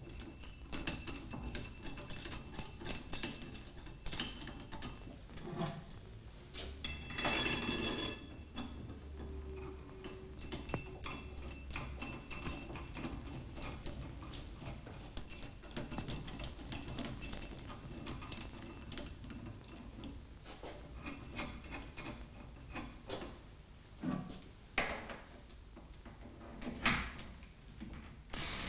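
Small metallic clicks and ticks as steel tensioning bolts are fitted and tightened between the pressure plate and assembly bracket of a drive-shaft press tool, with a louder clatter about seven seconds in and a few sharper knocks near the end.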